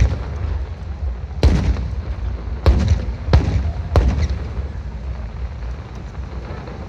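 Aerial fireworks shells bursting: four sharp booms in the first four seconds, each trailing off into a rumbling echo, over a steady low rumble that dies down toward the end.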